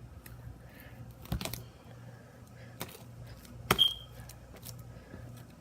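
Fluffy slime being handled and kneaded on a table: scattered sticky clicks and pops, the loudest about three and a half seconds in with a brief high squeak.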